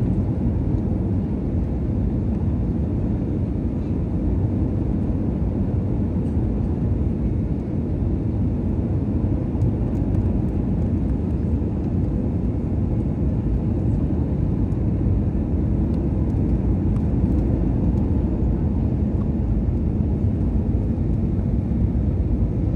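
Steady low cabin noise inside an Airbus A320neo airliner descending on approach: the even rush of the jet engines and airflow, unchanging throughout.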